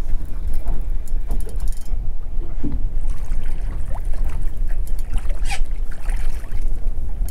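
Wind rumbling on the microphone over water lapping at a small open boat, with a few sharp clicks and splashes, one about five and a half seconds in.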